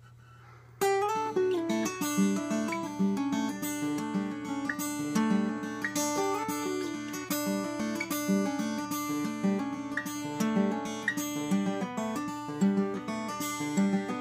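Steel-string acoustic guitar played solo, starting suddenly about a second in with a rhythmic pattern of picked and strummed notes that ring on into each other, with no singing.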